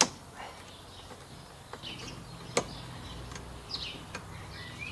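Sharp plastic clicks and handling taps as cable clips are fitted onto a lawnmower's handlebar, the sharpest about two and a half seconds in. Birds chirp several times in the background.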